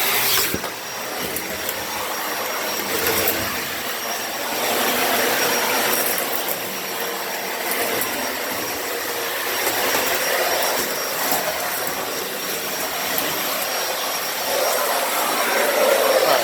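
Dyson Ball Animal 2 upright vacuum cleaner running on carpet, a steady motor and brush-roll rush with a thin high whine, its loudness swelling and easing every few seconds.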